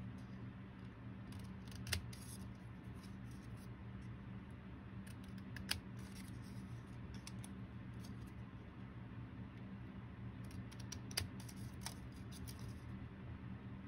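Scissors snipping through a folded paper index card: a few sharp snips now and then, over a steady low hum.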